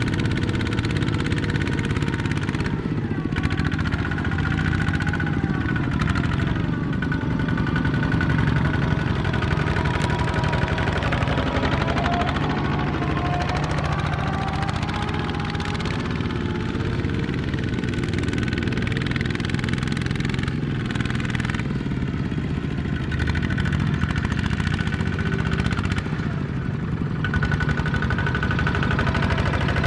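Single-cylinder diesel engine of a Kubota two-wheel walking tractor running steadily while it pulls a loaded trailer, its pitch rising and falling a little.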